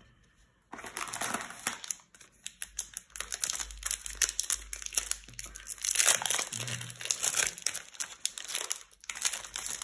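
Foil booster pack wrapper being crinkled and torn open by hand: crackling with many small sharp clicks, starting about a second in, with a couple of short pauses.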